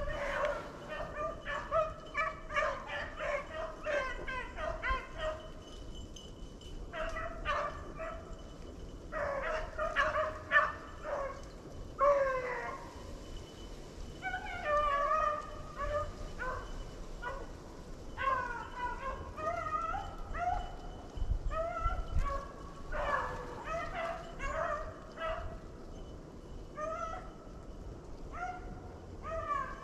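A pack of beagles baying on the trail of a swamp rabbit they are chasing: many short, overlapping barks and bawls in bunches, with brief lulls.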